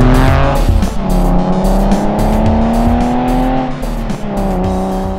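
Porsche 996 flat-six engine accelerating past, climbing in pitch and dropping back at two upshifts, about a second in and near four seconds. Background music with a steady beat plays over it.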